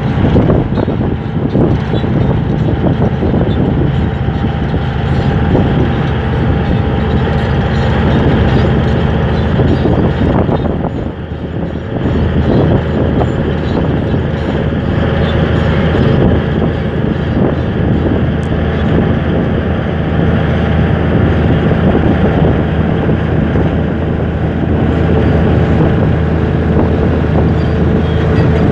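Komatsu D155A crawler bulldozer's diesel engine running hard as the dozer works on a sand-and-rock slope. The engine note dips briefly about eleven seconds in, then comes back up.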